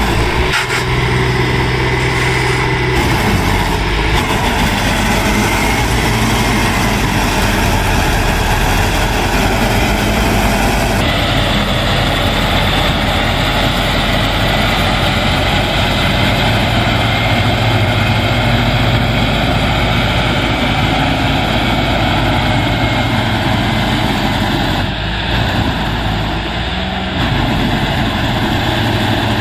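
Diesel engine of a tractor-mounted Standard TSC-513 combine harvester running steadily under load as the machine drives through deep mud.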